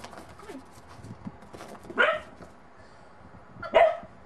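Bedlington terrier puppy barking twice, two short sharp barks about two seconds apart, wary of a snowman it is unsure of.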